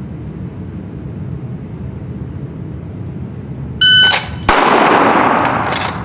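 A shot timer's start beep, then about 0.7 s later a single pistol shot drawn from the holster, echoing through the indoor range. The first shot is timed at 0.69 s from the beep.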